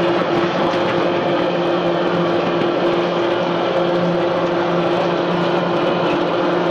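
French fries production line machinery running: electric gear motors driving a stainless steel inclined conveyor that carries cut potato strips. It makes a steady hum of several tones over an even mechanical noise.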